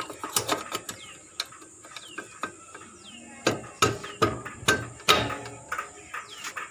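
Irregular metallic clicks and knocks of hand tools working on a motorcycle wheel being refitted, several strikes a second at times. Birds chirp in short falling notes between the strikes.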